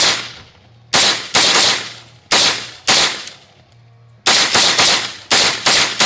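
Windham carbon fiber AR-15 rifle firing rapid semi-automatic shots, about a dozen in quick strings of roughly three a second, each sharp report dying away briefly, with a pause of about a second before the last string.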